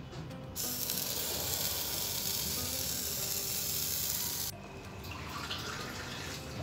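Waffle batter sizzling on the hot plates of a Nostalgia electric waffle maker as it is poured in: a steady hiss that starts abruptly about half a second in and cuts off abruptly about four and a half seconds in.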